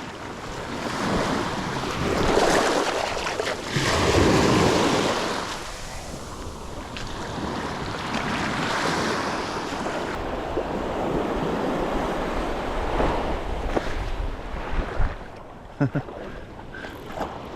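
Small surf waves washing up and breaking on a sandy beach, swelling and fading every few seconds, with wind rumbling on the microphone.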